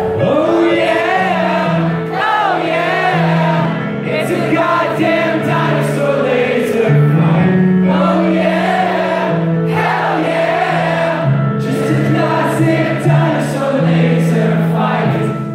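Live band music: a male lead singer sings a slow, held melody into a microphone over sustained synth-keyboard chords.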